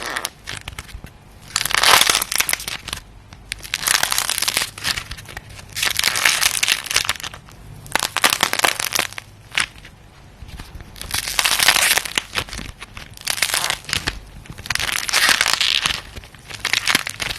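Clay being squeezed and pressed, cracking and crackling in repeated bursts of fine crunchy snaps, one press about every one and a half to two seconds.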